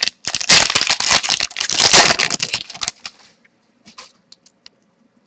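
Trading cards and their packaging being handled: a dense crackly rustling for about three seconds, then a few faint clicks.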